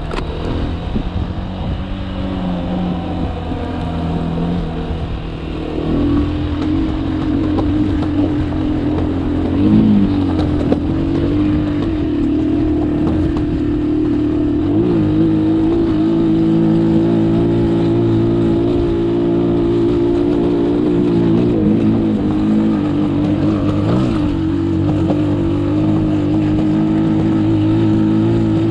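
Motorcycle engine pulling under load, heard from the rider's position over a low wind rumble. About six seconds in the revs rise and then hold high and fairly steady as the bike climbs, with a few brief dips in pitch.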